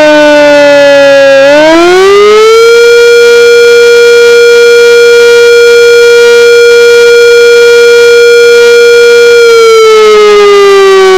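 Sentry 3V8-H fire siren sounding an attack signal. Its pitch falls, rises quickly about a second and a half in to a steady tone held for several seconds, then starts falling again near the end. It is recorded so close that the recorder overloads, so it sounds distorted.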